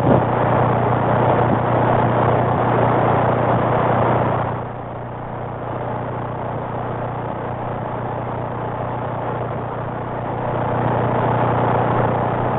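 Static hiss from a CB radio receiver on AM channel 19 with no one transmitting, over a steady low hum. The hiss drops noticeably about four and a half seconds in and swells again near the end.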